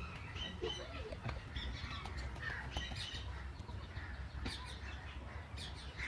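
A mix of birds calling: many short scattered chirps and squawks, over a low steady rumble.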